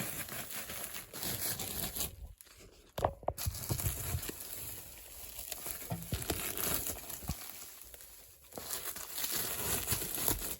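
Rustling and crinkling of upholstery material being handled, with scattered small clicks and a brief lull about two seconds in.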